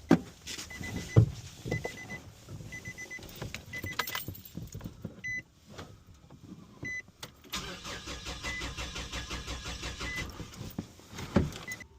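Starter cranking the 2011 Nissan Frontier's four-cylinder engine over for about three and a half seconds without it starting, for a relative compression test of the misfiring engine. Before the cranking, a series of short high beeps and a few knocks.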